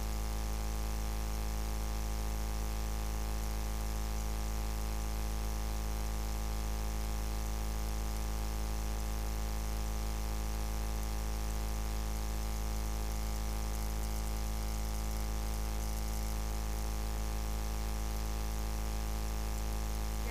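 A steady low hum with a buzz, unchanging in pitch and level throughout.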